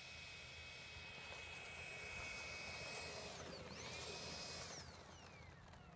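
RC model jet's engine whining at high power as the jet speeds along the runway. It grows louder as it nears and passes close by about four seconds in, its pitch dropping as it goes past, then fades.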